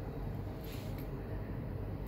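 Steady low background rumble, with a brief faint rustle a little under a second in.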